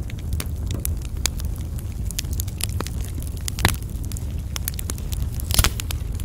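Wood fire crackling: frequent irregular snaps and pops over a steady low rumble, with two louder pops, one a little past the middle and one near the end.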